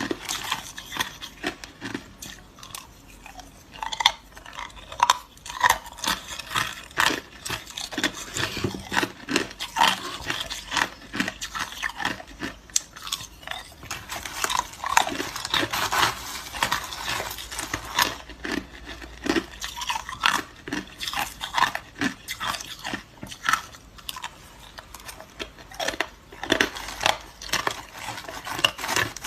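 Hard crushed ice being bitten and chewed close to the microphone: a dense, irregular run of sharp crunches and cracks.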